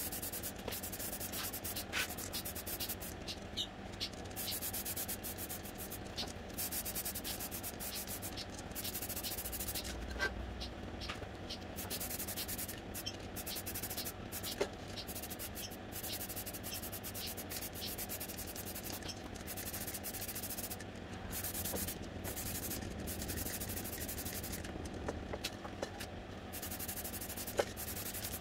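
Aerosol spray can hissing as paint is sprayed onto a wheel rim, in long bursts with a few short pauses and occasional sharp clicks.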